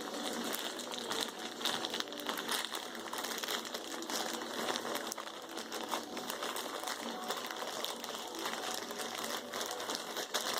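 A shipping bag being handled and opened, crinkling and rustling with many small irregular crackles.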